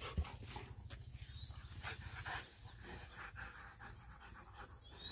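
Siberian huskies panting quickly while they wrestle in the grass, with faint scuffling. Quiet throughout.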